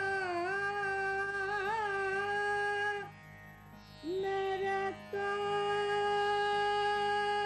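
Indian classical music: one long held melody note with small ornamental bends over a steady low drone. The note breaks off about three seconds in and returns about a second later, then is held again.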